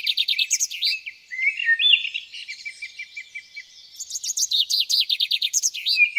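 Several songbirds chirping and trilling together. Quick runs of repeated chirps sound near the start and again from about four seconds in, with softer, scattered calls between.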